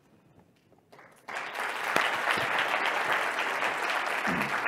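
Audience applauding, starting suddenly about a second in after a brief hush.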